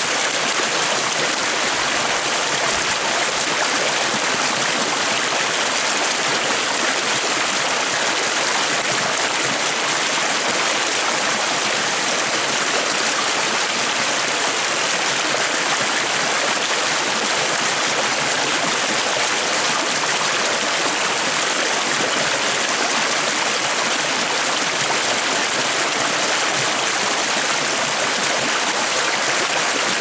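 Shallow rocky stream flowing steadily, the water rushing and splashing over a small cascade of stones in an even, unbroken sound.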